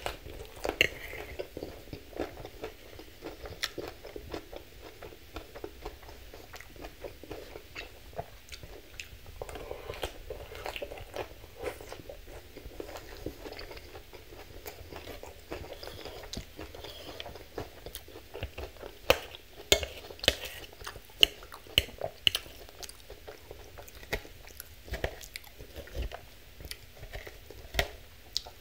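Close-miked chewing of a mouthful of Thai sesame chicken salad with leafy greens: wet crunching and smacking that goes on steadily. About two-thirds of the way through comes a run of sharper, louder clicks.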